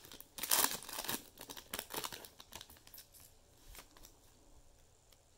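A trading card pack wrapper being torn open and crinkled by hand: a dense run of crackly tearing and rustling that thins out to a few faint rustles and dies away near the end.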